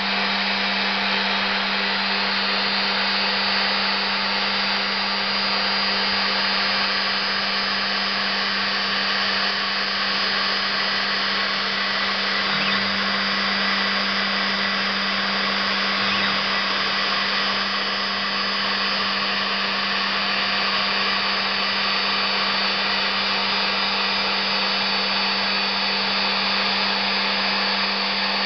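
CNC milling spindle running at speed while a small end mill cuts slots into a thin metal sheet. It makes a steady, even whirr with a constant hum underneath.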